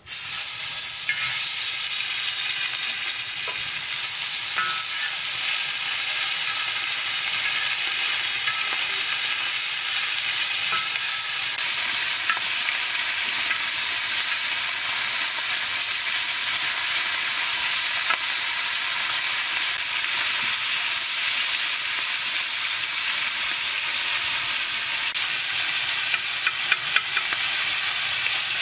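Fish pieces sizzling steadily as they fry in hot oil in a black wok, with a few sharp taps of the metal spatula against the pan near the end.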